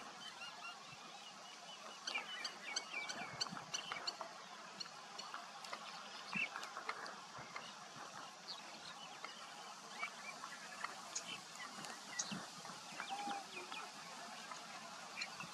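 Small birds chirping and calling in short, scattered notes over a steady outdoor hiss, with a quick run of faint clicks about two to four seconds in.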